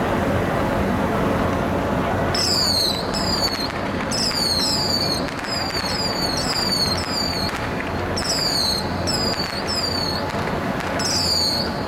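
Whistling fireworks going off one after another, each a shrill whistle that falls in pitch over about half a second, starting about two seconds in and repeating a dozen or so times. A steady low rumble of harbour noise runs underneath.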